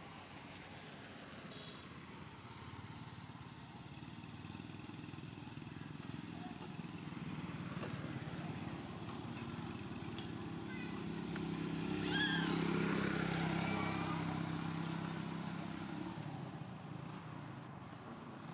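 A motor engine passing: a low steady hum that builds up, is loudest a little past the middle, and fades away near the end. A few short high chirping calls sound over it about ten to thirteen seconds in.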